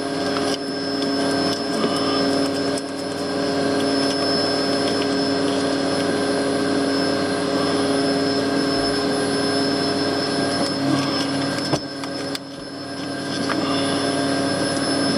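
Vacuum cleaner motor running with a steady hum, being used to suck up honeybees from a comb in a wall cavity.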